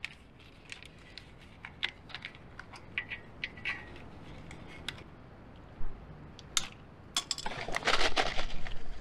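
Scattered light clicks and rattles of cables being handled and pushed through the underside of a trailer floor. Near the end comes about a second and a half of loud, dense crinkling as a packet is handled close by.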